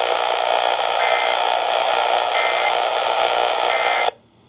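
Three short bursts of Emergency Alert System end-of-message data tones, about a second and a quarter apart, over steady radio static hiss; the audio cuts off abruptly near the end.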